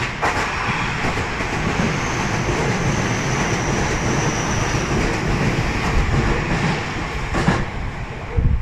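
Keio Inokashira Line 1000-series electric train running close past a station platform: a steady rumble of wheels on the rails, with a few sharp knocks at the start and again near the end.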